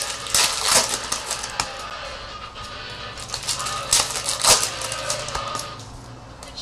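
Trading cards and pack wrappers being handled and flipped through: an irregular run of crisp clicks and rustles, over quiet background music.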